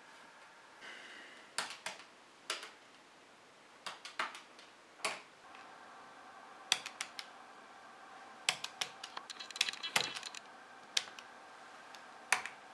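Plastic keys of a desktop calculator being pressed: irregular clicking taps, some singly and some in quick runs of several.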